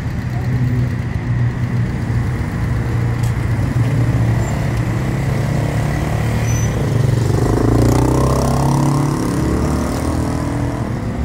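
A motor vehicle engine running steadily at idle, a low, even hum. A second vehicle sound swells and fades about two-thirds of the way through.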